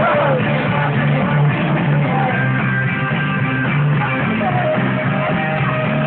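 Loud rock music with guitar playing.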